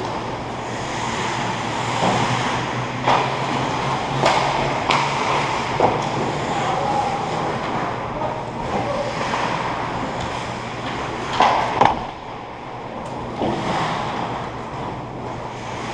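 Ice hockey play: skates scraping and carving the ice, with sharp clacks of sticks and puck at irregular moments, a pair of them close together about two-thirds of the way in. A steady low hum runs underneath.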